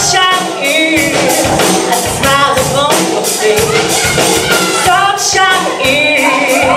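Backing music with a steady beat and singing voices.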